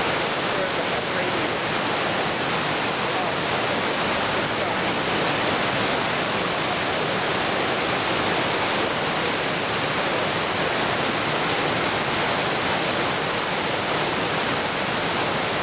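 Waterfall: the steady rushing noise of falling water, unchanging throughout.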